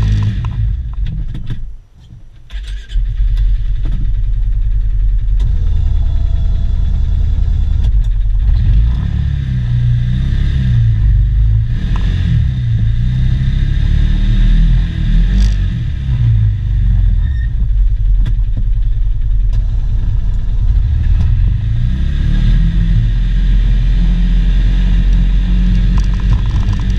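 Polaris Ranger 570 UTV's single-cylinder engine running under load, heard from inside the cab, as the machine pushes snow with its front plow blade. The engine pitch rises and falls, and the sound drops away briefly about two seconds in.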